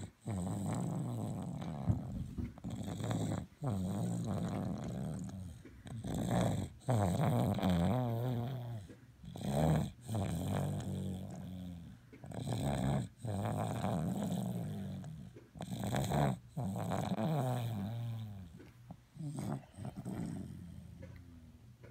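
Heavy, rough snoring, with a long drawn-out snore roughly every three seconds.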